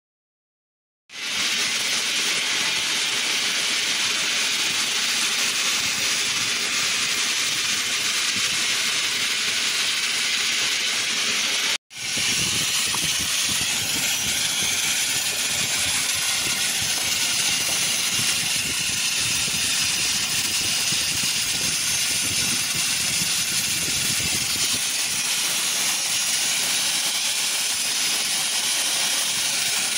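Steady loud hiss of a glassworking burner's gas-oxygen flame on a glass lathe heating a borosilicate glass tube. It starts about a second in and drops out for an instant about halfway through.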